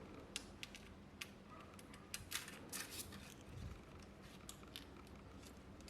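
Faint, scattered small clicks and light taps from hands handling a phone and small repair tools on a bench, with several in quick succession about halfway through.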